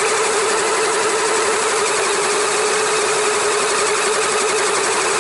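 LEGO Technic electric motors and gear train of an RC tracked vehicle running steadily, heard close up through its onboard action camera: a constant whine with a slightly wavering tone over a dense mechanical hiss.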